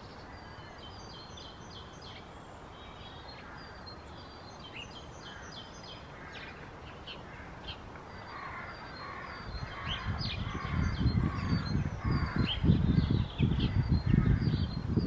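Songbirds chirping and singing in short repeated phrases. From about ten seconds in, gusts of wind rumble on the microphone, growing louder and drowning the birds toward the end.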